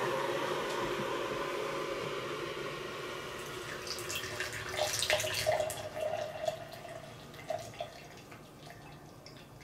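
Hot water poured from a gooseneck electric kettle into a cup: a steady stream that fades away toward the end, with a few drips and clinks.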